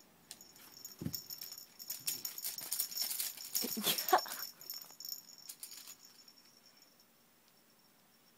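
Baby play-gym toys rattling and clacking as a baby tugs and shakes them, with short baby vocal sounds about a second in and again around four seconds in. The rattling dies away after about six seconds.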